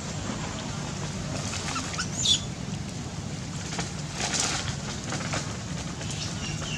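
Outdoor ambience around a troop of long-tailed macaques: one short, high squeal that falls in pitch about two seconds in, a rougher, noisier burst a little past four seconds, and brief high calls near the end, over steady low background noise.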